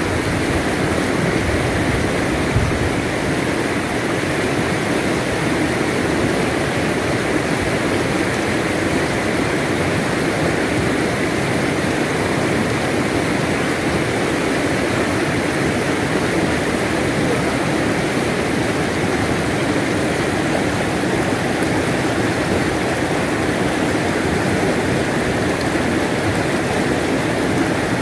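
Shallow river rapids: whitewater rushing steadily over rocks close by.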